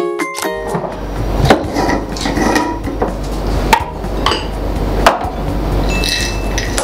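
A short chiming music jingle ends about half a second in. Then a ribbed glass jar of peanuts is handled and set on a stone countertop, with several sharp knocks and clinks, and is tipped toward a small glass bowl near the end.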